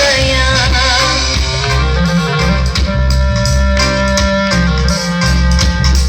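Background song music: an instrumental passage with guitar, bass and drums.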